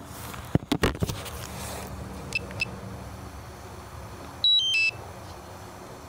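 DJI Mavic remote controller being switched off to reset a frozen link: a few handling clicks, then two quick short beeps, then a louder brief electronic chime of several stepped tones.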